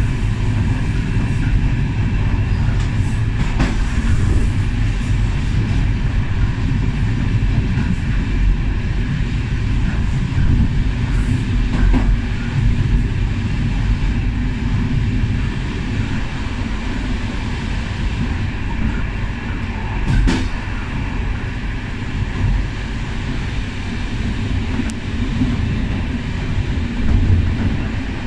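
Passenger railway coach rolling along the track at speed, heard from the rear of the last coach: a steady rumble of wheels on rails with a few sharp clicks.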